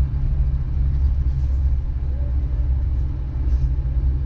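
Suzuki Vitara's 1.6 EFI engine running, a steady low rumble.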